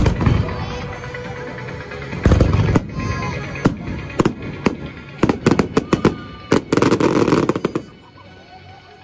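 Aerial firework shells bursting: a loud bang at the start and another about two seconds in, then a run of sharp cracks and a dense crackling volley that stops about eight seconds in. Music plays underneath.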